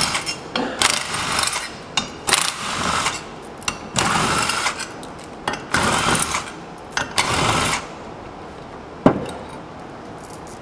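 Cordless power driver run in short bursts, about five of them, backing the screws out of a clutch spring cap. A single sharp clack comes near the end.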